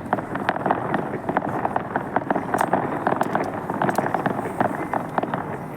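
Fireworks crackling: a dense, uneven run of sharp pops, several a second, over a steady hiss.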